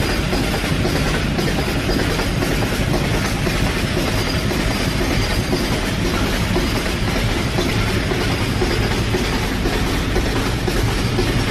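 Loaded open-top coal wagons of a freight train running past without a break: a steady, loud noise of wagon wheels on the rails.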